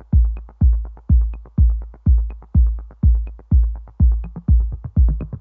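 Electronic dance music: a steady kick drum on every beat, about two beats a second, with light hi-hat ticks in between.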